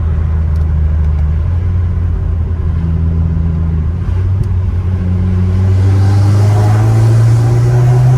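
Turbocharged Subaru WRX flat-four with a Cobb intake running steadily, then from about five and a half seconds in the engine note climbs in pitch and gets louder as the car accelerates.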